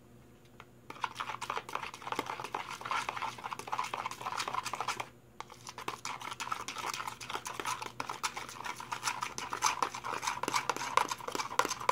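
Homemade paint being mixed vigorously by hand in a container, with rapid clicking and scraping. There are two runs, with a short pause about five seconds in.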